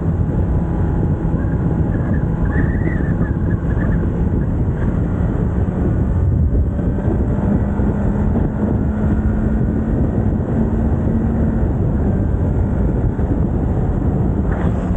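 Kawasaki Z900's inline-four engine on its stock exhaust, running at a steady pace on the move, with heavy wind noise on the microphone. The engine note rises slightly about seven and a half seconds in and drops back about four seconds later.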